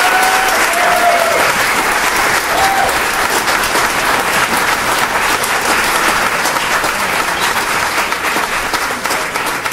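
Theatre audience applauding loudly, with a few cheering voices in the first few seconds, easing off slightly near the end.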